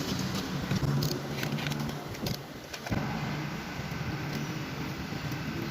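A steady low mechanical hum with a few sharp clicks and knocks scattered through the first three seconds.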